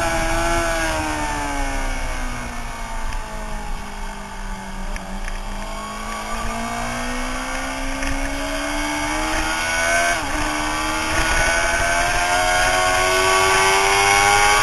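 Suzuki sportbike engine heard from an onboard mount: its pitch falls over the first few seconds as the bike slows, then climbs steadily under acceleration, with a quick drop about ten seconds in at an upshift before it climbs again.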